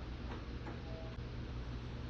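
Split air conditioner running with a steady low hum and hiss, with a few light, irregular ticks and a brief short tone about a second in: the kind of abnormal noise a split AC unit makes when it has a noise fault.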